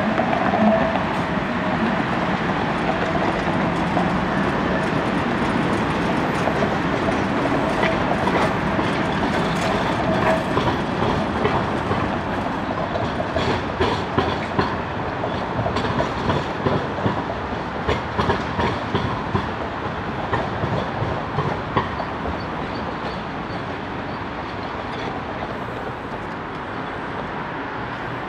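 Ganz articulated tram running along the track, with a steady whine near the start, then its wheels clacking in a run of clicks over rail joints. The sound fades as the tram pulls away.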